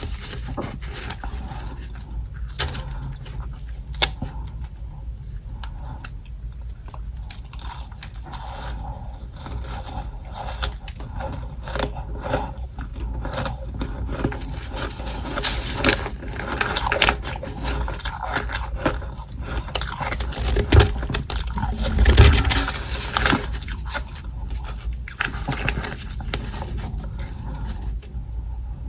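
Soft humidifier frost from a freezer tray crunching close to the microphone, scraped and chewed in a dense run of small crackles. A few louder crunches come past the middle.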